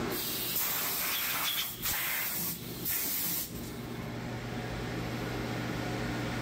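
Compressed-air blow gun blasting metal chips off a CNC mill's vise and table, a hiss in three bursts with short breaks over the first three and a half seconds. A steady low hum runs underneath and is left alone once the air stops.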